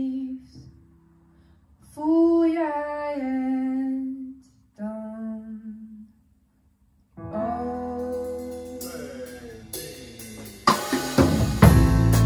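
A female voice sings long held notes with pauses between phrases. After a short silence, sustained instrumental notes come in. Near the end the full band enters loudly with drum kit and a cymbal crash.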